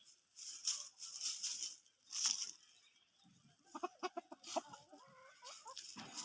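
Chicken clucking: a quick run of short pitched clucks about four seconds in, after several scratchy rustling bursts.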